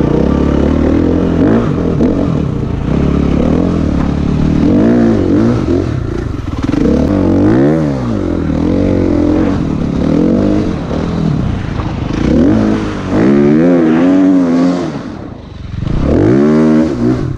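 Dirt bike engine revving up and falling back again and again as the rider works the throttle along the track, the pitch climbing and dropping with each burst. The engine note drops away briefly about fifteen seconds in, then picks up again.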